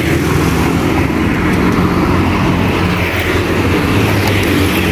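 Road traffic on a busy street: a steady, loud rumble of passing vehicle engines and tyres.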